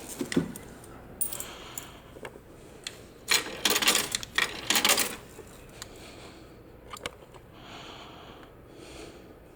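Coins dropped into a payphone's slot, clinking and rattling through the coin mechanism in a quick cluster a few seconds in, with scattered clicks of handling before and after.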